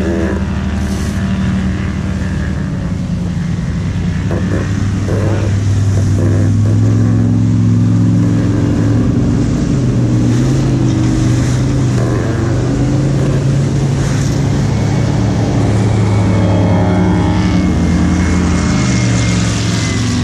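Motorboat engines running loud and steady as powerboats pass close by, their pitch shifting up and down a few times, over a continuous rush of water.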